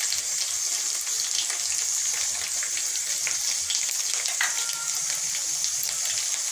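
Oil sizzling in a metal kadai as a masala of tomato, ginger, chillies and freshly added turmeric fries down: a steady high hiss with fine crackles throughout.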